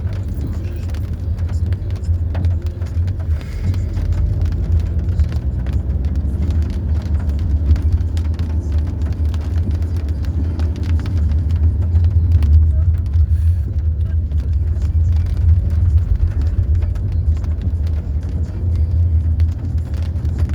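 Car driving, heard from inside the cabin: a steady low drone of engine and tyres on the road, with small knocks and rattles from the bumpy surface.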